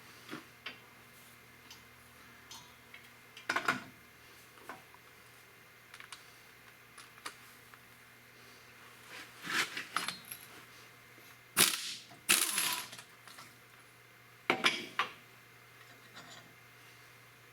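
Scattered metallic clinks, clicks and clanks of hand tools and metal parts being handled while swapping an alternator pulley, the loudest few clanks coming in a cluster about two thirds of the way through.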